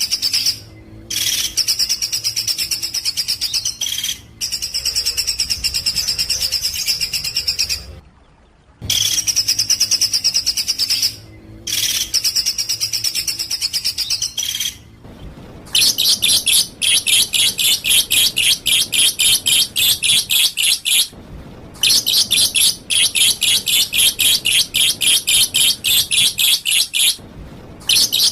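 Songbird song: loud, high phrases repeated with short breaks, then from about halfway a very fast run of rapid repeated high notes, broken twice by brief pauses.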